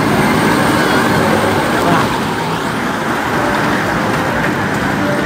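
A kiddie amusement-park train ride running, heard from aboard as a steady, loud rumble.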